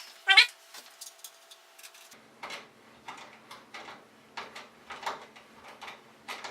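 Screws being driven through a case fan's frame into a PC case with a screwdriver: a string of irregular light clicks and ticks, with one brief squeak at the very start.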